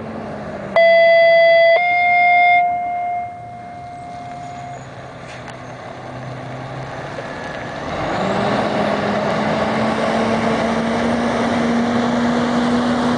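A two-tone pager alert from a scanner radio: one steady tone for about a second, then a slightly higher tone for about three seconds that fades out. From about eight seconds in, a fire engine's diesel grows loud as it drives up close, its engine note rising and then holding steady.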